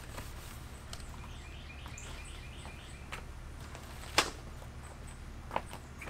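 A bird gives a quick run of short, evenly spaced chirps about two seconds in, over a steady outdoor background. About four seconds in there is a single sharp tap, the loudest sound here.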